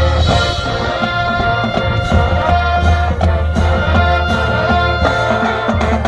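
High school marching band playing: held brass and woodwind chords over drum hits and front-ensemble percussion.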